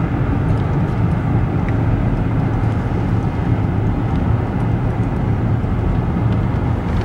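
Steady engine and tyre noise inside a car's cabin as it drives along a road at speed.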